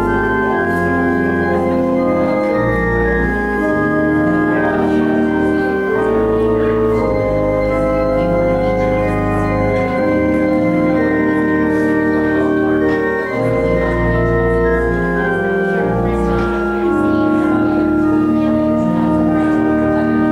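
Church organ playing slow, held chords over low bass notes that change every few seconds.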